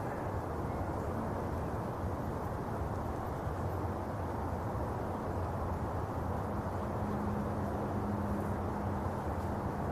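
Steady low outdoor background noise, with a faint steady hum joining about seven seconds in.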